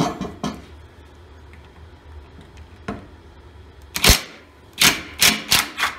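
Tool and parts handling on a sheet-metal workbench while a Pittsburgh two-stage vacuum pump is being unbolted: a few light clicks, then a sharp knock about four seconds in, followed by a quick run of five short rattles.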